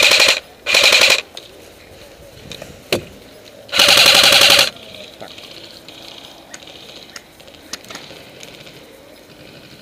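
Airsoft electric gun firing full-auto: two short bursts in quick succession, then a longer burst about four seconds in, with a single sharp pop between them.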